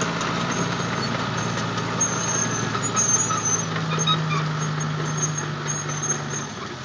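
A vehicle engine running at a steady speed, its hum shifting about halfway through and then dropping away just before the end.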